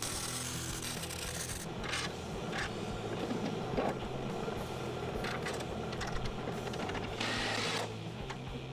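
MIG welder crackling on steel for about the first second and a half, then metal parts clinking, and a short ratcheting burst near the end as a bolt is driven in, all over background music with a steady beat.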